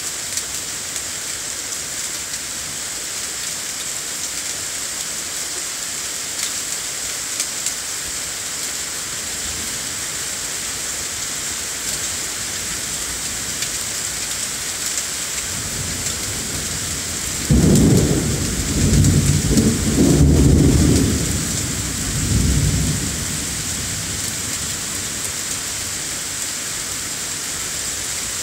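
Rain falls steadily with an even hiss. About fifteen seconds in, a low rumble of thunder builds, is loudest for several seconds, then rolls away.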